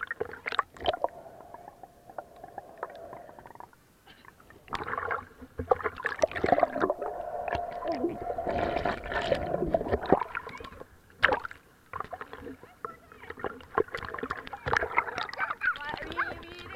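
Swimming-pool water splashing and sloshing around a waterproof camera as it goes under and comes up through the surface, with muffled underwater bubbling and a few sharp knocks.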